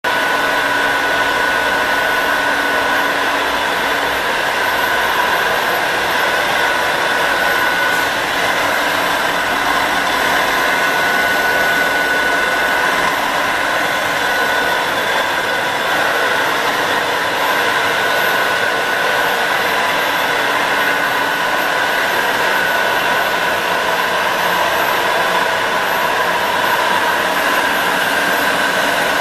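Deckel FP 3 NC universal tool milling machine running under power: a steady mechanical whir with a high, steady whine on top.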